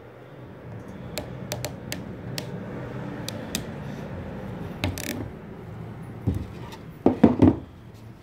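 Hand-operated ratchet swage crimping tool being squeezed onto a 1.5 mm steel wire rope ferrule: irregular sharp metallic ratchet clicks, then a few louder clanks near the end. A steady low hum runs underneath.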